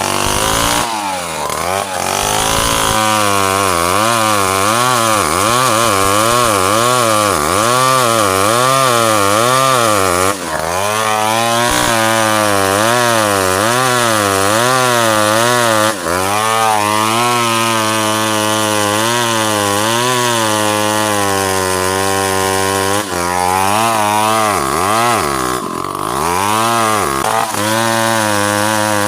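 Two-stroke chainsaw running at high revs while cutting ironwood, its engine pitch wavering up and down about once a second as the chain loads and frees in the cut, with a few brief dips.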